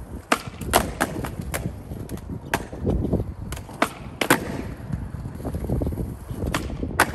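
Skateboard on concrete during kickflip attempts: the wheels roll with a low rumble, broken by about ten sharp clacks of the board popping and landing on the ground.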